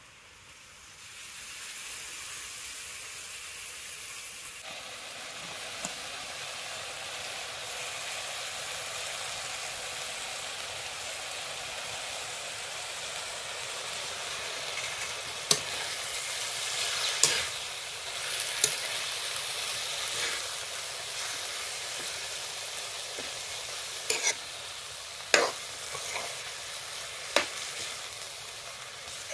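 Chopped wild greens sizzling in hot oil with onion in a kadhai. The sizzle comes up about a second in and grows louder near five seconds. Through the second half, a spatula stirring the pan gives sharp clicks and scrapes against the metal.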